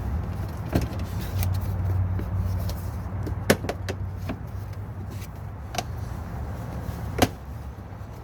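Sharp clicks and knocks of a rigid plastic wheel-well liner being pushed and worked into place, a few scattered over several seconds with a quick cluster about three and a half seconds in, over a steady low hum.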